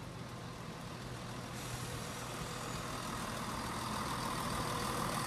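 Class 170 Turbostar diesel multiple unit running in to the platform, its engine sound growing steadily louder as it draws near and passes close by.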